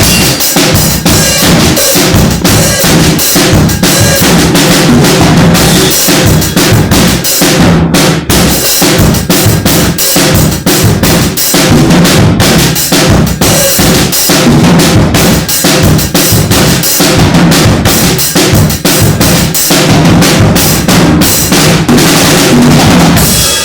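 Mapex drum kit played loud and busy: rapid bass drum and snare hits with rimshots and rolls, stopping just before the end.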